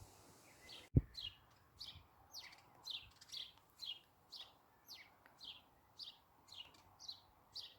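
House sparrows chirping, a steady run of short falling chirps about two or three a second. A single sharp click about a second in.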